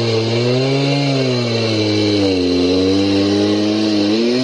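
Two-stroke chainsaw in a homemade portable chainsaw mill, running at high revs while ripping a log lengthwise. The engine note wavers up and down as the cut loads it, with a brief dip near the end.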